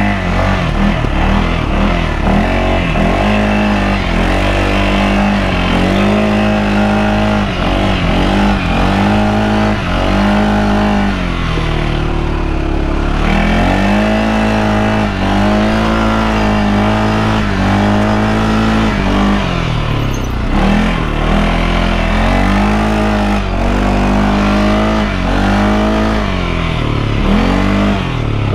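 Off-road vehicle's engine revving up and easing off again and again, each rise holding briefly before the pitch drops, as the throttle is worked over rough ground.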